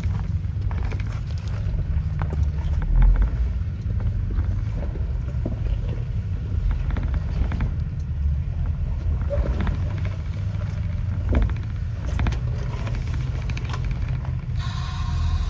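Jeep Wrangler rock crawling at low revs, its engine a steady low rumble, with scattered clicks and crunches of tires on rock and a heavier thump about three seconds in.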